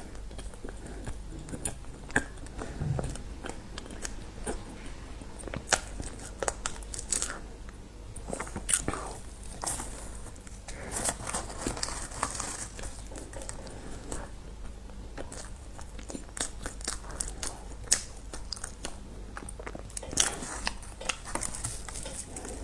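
A person biting and chewing crunchy food, with many irregular sharp crunches.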